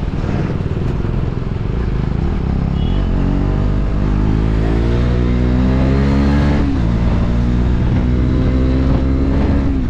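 KTM Duke 250's single-cylinder engine pulling under acceleration, its pitch climbing from about three seconds in, dropping sharply about seven seconds in, then climbing again before falling away near the end, over a steady rush of wind and road noise.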